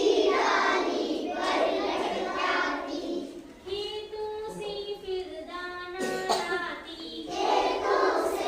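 Children singing a Hindi children's poem together in a sing-song chant, the lines sung in phrases of a second or two.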